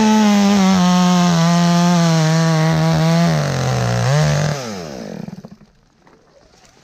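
Chainsaw at full throttle cutting through a limb, its pitch sagging under load. About three seconds in it bogs lower, picks up briefly near four seconds, then the throttle is released and it winds down about five seconds in.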